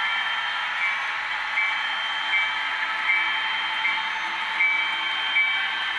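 HO scale Bachmann DD40AX model locomotive running with its onboard sound playing a diesel engine through a small speaker, mixed with the whir of the model train rolling on the track. A light tick recurs about every three-quarters of a second.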